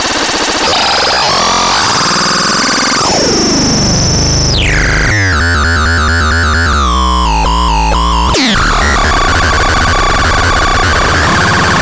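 Electronic synthesizer making noisy sweeping tones. A few seconds in, the pitch dives downward; then a warbling, wobbling tone plays over a steady low drone. Near the end it gives way to a harsh hissing noise texture.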